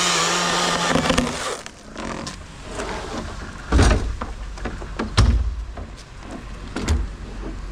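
Chainsaw running at full throttle through a cut, stopping about a second and a half in. Then heavy wooden thuds, three loudest at about four, five and seven seconds in, as cut wood comes down.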